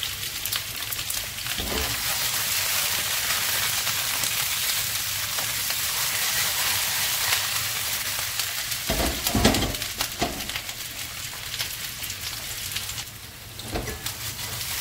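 Potatoes and sausage slices sizzling in hot oil in a frying pan, a steady hiss. Around the middle and again near the end come a few low thumps as the pan is tossed and the food lands back in it.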